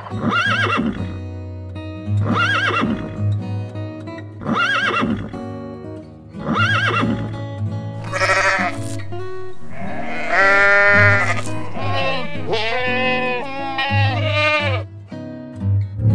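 Domestic goat bleating, several long quavering bleats in the second half, over background music.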